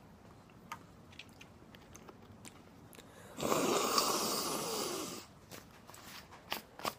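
A loud, breathy rush of air lasting about two seconds, from a person's mouth or nose, set among small handling clicks.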